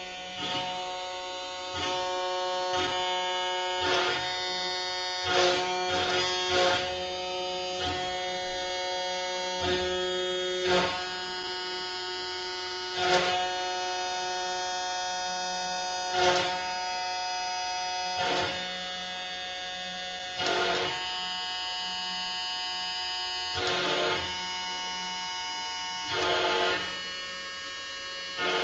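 SilverBack benchtop CNC router carving into a pine board. A steady motor whine shifts in pitch each time the machine changes its move, with short louder bursts every couple of seconds as the bit cuts.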